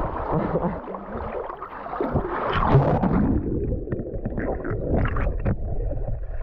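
Water heard through a GoPro held underwater: a muffled, continuous gurgling and low rumbling, with bubbly surges that swell about two and a half seconds in.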